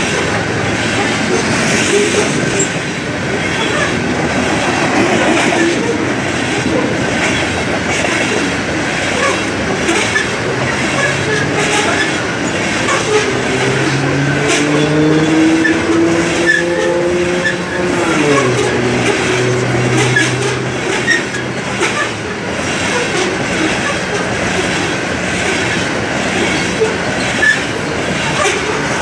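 Coal train's steel gondola cars rolling past close by: a steady rumble of wheels on rail with scattered clicks and clanks. Partway through, a low droning tone rises out of the rumble and drops in pitch before fading.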